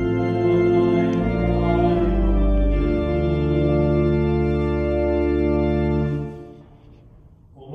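Church organ playing a short phrase of sustained chords, the chord changing a few times, as the response to a chanted versicle in Matins; it dies away about six seconds in.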